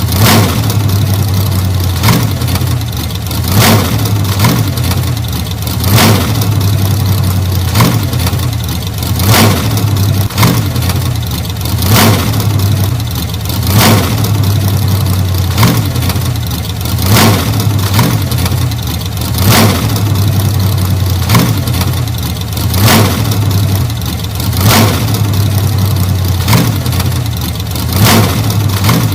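1940 Ford flathead V8 engine idling steadily, with a short sharp pop about every one and a half to two seconds.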